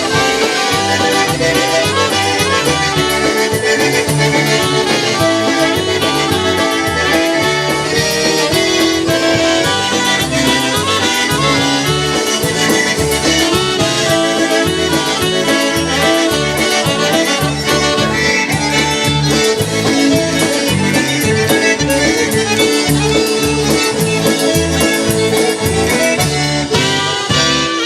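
Live polka band playing an instrumental passage between vocal verses, with a steady pulsing bass beat under the melody instruments.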